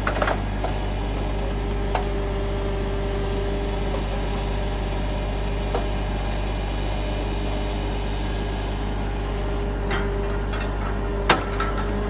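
Logging truck's diesel engine running steadily to drive the hydraulic knuckle-boom loader, a constant low hum with a held whine. It is broken by a few sharp metal clanks as the trailer is hoisted, the loudest near the end.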